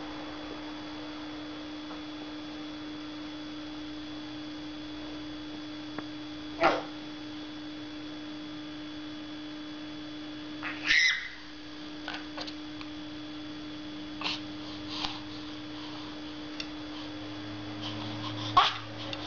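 A baby's short squeals and coos, a few seconds apart, with a louder one about 11 seconds in and another near the end, over a steady low hum.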